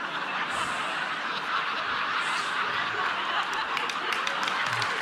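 Audience laughing and applauding, a steady mix of laughter and clapping.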